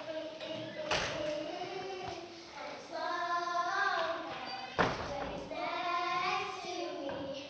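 Young girls singing a song together without instruments. Two sharp thumps cut in, about a second in and just before five seconds.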